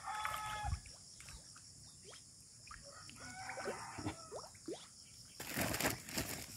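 Chickens clucking in short pitched calls, once at the start and again a few seconds later, over a steady high insect drone. About five and a half seconds in there is a brief rushing noise.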